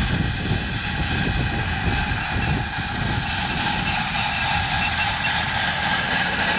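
A 7.25-inch gauge coal-fired live-steam Clishay beam-engine locomotive running past close by, hauling loaded ride cars: a steady rumble of the engine working and wheels on the rails.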